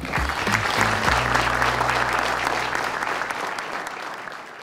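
Audience applauding over soft background music, the applause fading away near the end.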